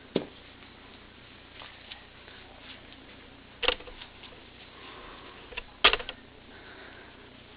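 Handling noise from plush puppets and cloth being moved about: faint rustling with about three short knocks, one just after the start, one near the middle and one about six seconds in.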